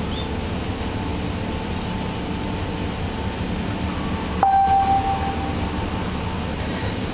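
Steady low cabin noise of an Airbus A380 in its climb after takeoff. About four seconds in, a click and then a steady single tone that lasts about a second and a half.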